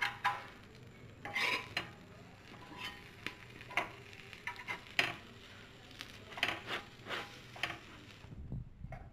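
Kitchen cookware and utensils clinking and clattering: a dozen or so separate knocks and clinks at uneven intervals, some ringing briefly.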